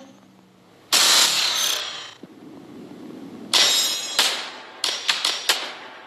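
Sound effects from a stage show's soundtrack: after a quiet moment, a big crashing hit about a second in, another near the middle, then a quick run of sharp percussive hits.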